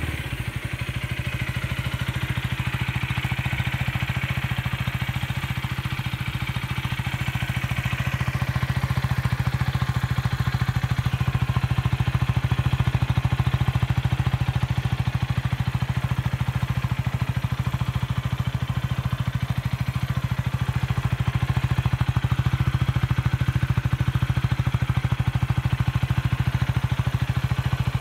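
Husqvarna Vitpilen's single-cylinder engine idling steadily at the exhaust, freshly started.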